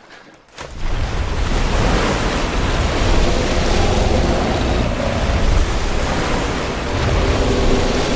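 A huge mass of water crashing and surging with a deep rumble. It starts suddenly just under a second in and stays loud: a film sound effect of a great eruption of water from a lake.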